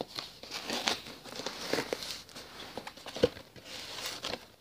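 Cardboard mailing package being handled and opened: irregular rustling, crinkling and scraping, with one sharp snap about three seconds in.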